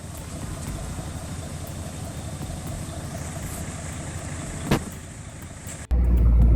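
Logging truck engine running with a fast, even pulse, and one sharp knock about three-quarters of the way through. Near the end it cuts suddenly to a much louder, deeper engine rumble.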